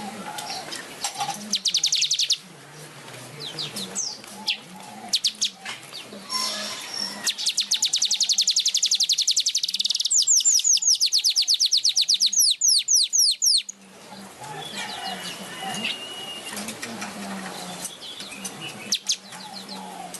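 Manyar weaver bird singing: scattered chirps, then a long run of very fast repeated buzzy notes from about 7 to 13 seconds in, ending in quick sweeping notes.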